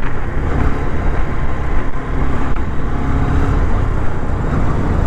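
Honda CB125 single-cylinder engine running steadily while riding, mixed with heavy wind and road noise.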